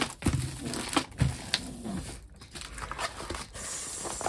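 Crinkling and rustling of a plastic-covered diamond painting canvas being handled and pressed flat by hand. It is busiest in the first two seconds, then quieter.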